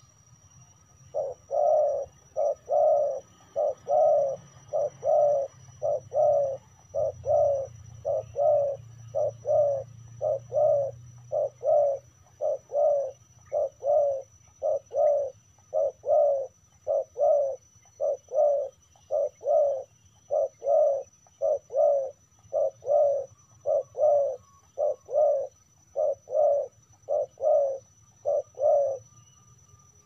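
Spotted dove cooing over and over in short groups of two or three coos, almost without a break, stopping near the end.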